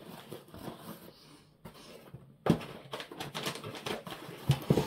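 A sudden knock about halfway through, followed by rustling and clicking from packaging being handled.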